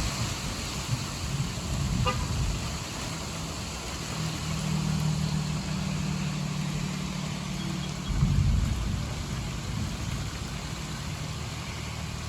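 Heavy rain pouring down steadily. A low steady hum sounds from about four seconds in, breaking off just before a louder low rumble about eight seconds in.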